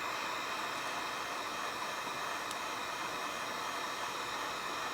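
Heat gun blowing steadily, a constant rushing hiss of hot air while it shrinks heat-shrink tubing over soldered wires.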